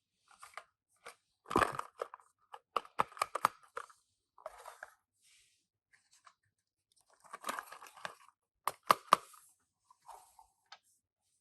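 Tomica minicar packaging being opened by hand: irregular tearing and crinkling of card and plastic with sharp clicks and taps, in short bursts separated by quiet gaps.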